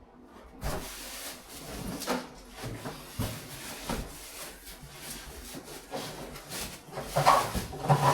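A microwave oven being pulled out of its cardboard box: cardboard and packing rubbing and scraping, with a run of short knocks, loudest near the end.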